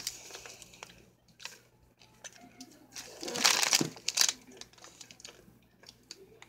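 A candy wrapper crinkling in the hands, loudest for about a second around the middle, with softer rustles before and after.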